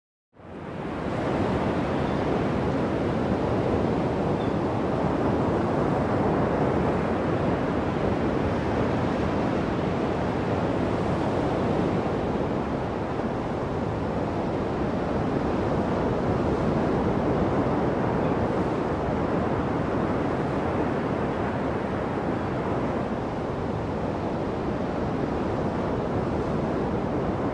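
Steady rush of ocean surf and wind, fading in quickly at the start.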